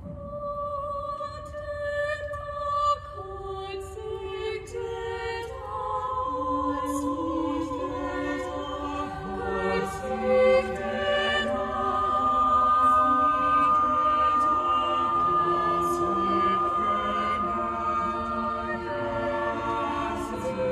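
Small mixed choir singing a cappella in a large stone cathedral: slow, sustained chords that begin softly and grow fuller and louder from about halfway through.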